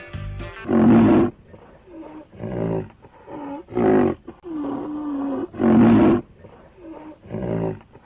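A large animal calling over and over: about six loud, short, deep calls, with one longer held call about halfway through.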